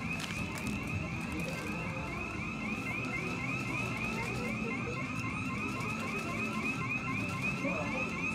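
Electronic alarm tone warbling steadily, a quick rise-and-fall chirp repeating a few times a second, over a low background hubbub.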